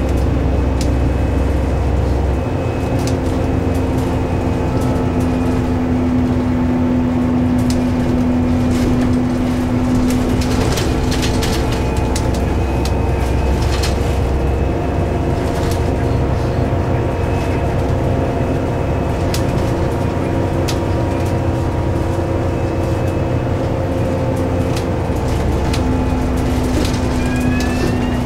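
Scania K320UB bus's engine and ZF Ecomat automatic driveline heard from inside the passenger cabin while under way: a steady drone whose tones shift in pitch and strength a few times. Light interior rattles and clicks come through it, and a brief rising whine sounds near the end.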